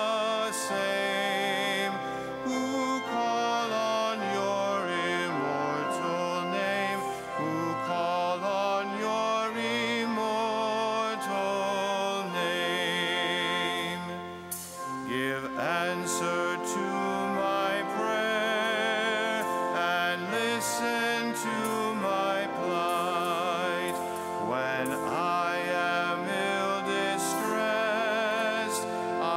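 Entrance hymn sung by a solo cantor with a strong vibrato, accompanied by organ.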